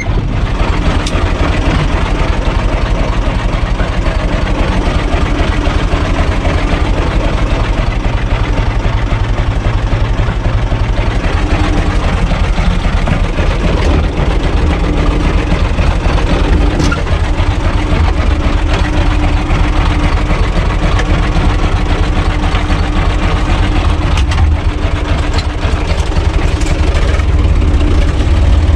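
Diesel engine of a U445 DT 4x4 tractor running steadily, heard from inside the cab. It grows a little louder near the end as the tractor drives off.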